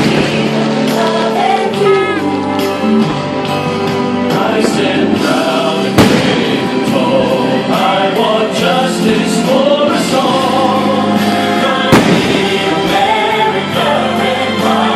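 Music with choral singing for a fireworks show, broken by loud firework bangs about every six seconds, three in all.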